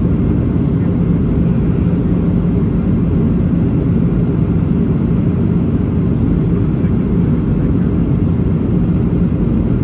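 Steady in-cabin noise of a Boeing 737-800 on approach, heard from a seat over the wing: its CFM56-7B engines and the rushing air make a constant low rumble with a steady hum running through it.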